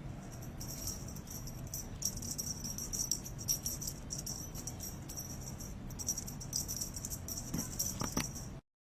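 Light metallic jingling and rattling, coming and going in irregular bursts, that stops abruptly near the end.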